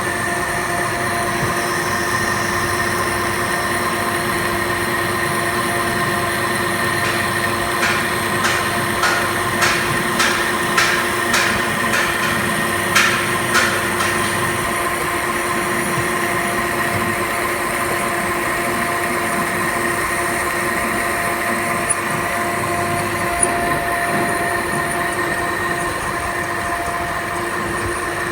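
Metal lathe running steadily, a hum of several steady tones. About a quarter of the way in comes a run of about ten sharp knocks, roughly two a second, that stops near the middle.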